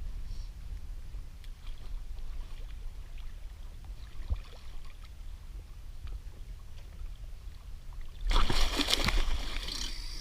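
Water lapping and sloshing around a kayak over a steady low rumble. About eight seconds in comes a loud burst of splashing lasting about a second: a hooked shark thrashing at the surface beside the kayak.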